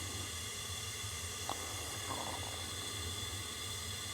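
Steady background hiss with a low hum: workshop room tone. A single faint click of a hand tool comes about one and a half seconds in.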